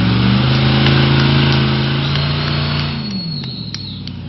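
Corvette 6.2-litre V8 in an off-road special Jeep running hard under load, its note stepping up slightly early on, then the revs falling away about three seconds in. A thin high whistle sounds over it in the second half.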